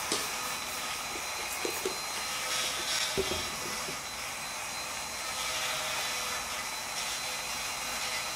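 Steady rushing hum of an electric shop fan running, with a few short hissing squirts of a trigger spray bottle of glass cleaner onto the windshield glass and a light knock about three seconds in.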